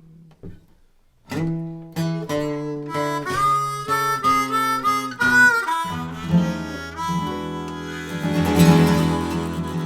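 Harmonica playing a melody over strummed acoustic guitar: the closing instrumental bars of a blues-rock song. It comes in after about a second of near quiet and builds to a loud, held chord near the end.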